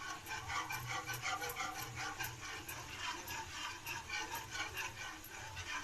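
Wire whisk beating béchamel sauce in a pot: a steady rhythm of light clicks and scrapes, about four to five strokes a second.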